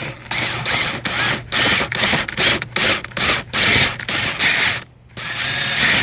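Power drill boring a pilot hole through the wall sheathing in a string of short bursts, with a brief pause about five seconds in.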